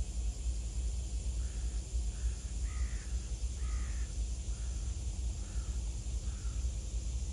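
A crow cawing about seven times in a row, the middle calls loudest, over a steady low rumble.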